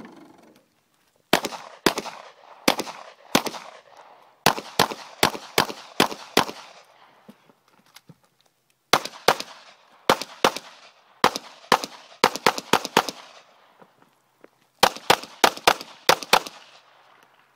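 SIG Sauer P226 pistol fired in rapid strings: a few spaced shots at first, then fast runs of shots in quick pairs, with short pauses between strings. Each shot is sharp and leaves a brief echo.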